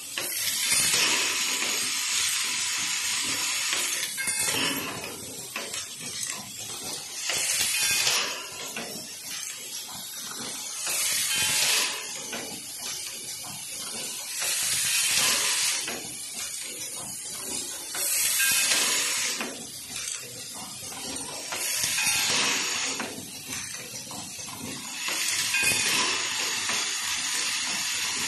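Pneumatic plastic-parts assembly machine running: bursts of compressed-air hiss lasting one to three seconds come about every three and a half seconds, seven in all. Between and under them the mechanism and its vibratory bowl feeder keep up a continual rapid clicking and rattling.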